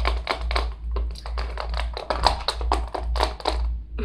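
Rapid, irregular clicking and clattering of small hard objects being handled and rummaged through by hand, stopping just before the end, over a steady low hum.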